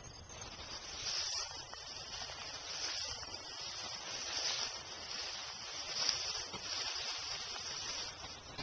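Tall field grass swishing and rustling against legs and body moving through it. It comes as a hiss that swells and fades in waves about every second and a half.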